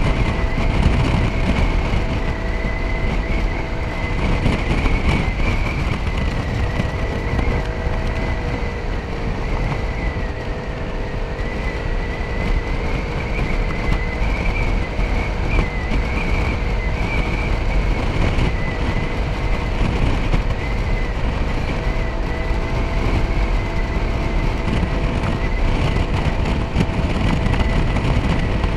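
Motor scooter engine running at riding speed under heavy wind rumble on the microphone; the engine note dips about five to seven seconds in, then holds steady.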